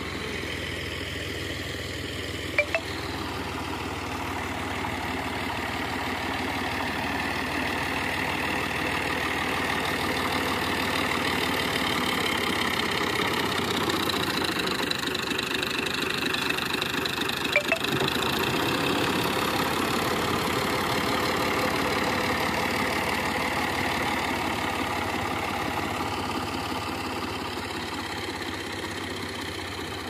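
Farm tractor's diesel engine running as the tractor drives over a pile of chopped corn silage, packing it. It grows louder as the tractor passes close around the middle and fades toward the end. Two short sharp clicks come a few seconds in and again just past the middle.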